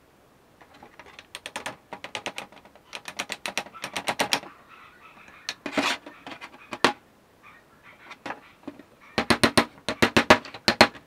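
Rapid light hammer taps in bursts, several a second, on the metal pins of a meat cleaver's wooden handle scale, with the densest and loudest run near the end.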